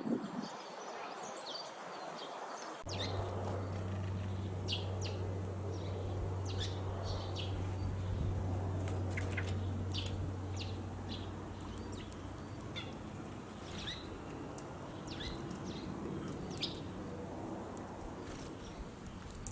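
Sparrows chirping: many short, separate chirps scattered throughout. A steady low hum runs underneath from about three seconds in.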